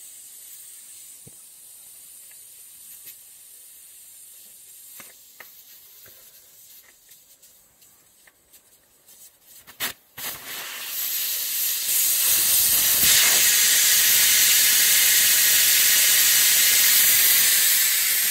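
Air hissing out of a Ferguson TE20 rear tractor tyre through its valve as the valve core is taken out. At first it is a faint hiss with a few small clicks, then about ten seconds in it swells to a loud, steady rush of escaping air, the tyre deflating.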